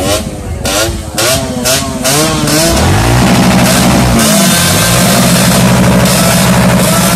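Motorcycle engines revved in quick throttle blips, the pitch swinging up and down, then one engine rising to a steady high-rev drone held for several seconds.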